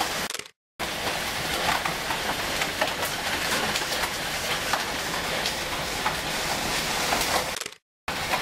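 Heavy hail falling with rain, a dense hiss full of sharp ticks as hailstones pelt a concrete sidewalk and lawn. The sound cuts out briefly twice, just under a second in and near the end.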